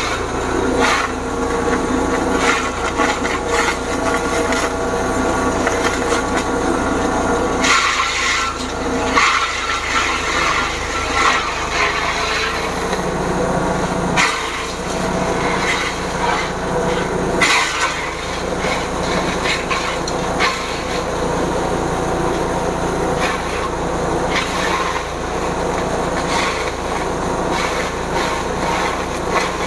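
Engine-driven forage chopper running steadily while it chops hard sugarcane stalks into half-centimetre pieces. The blades give irregular sharp cracks and crunches over the steady hum of the engine.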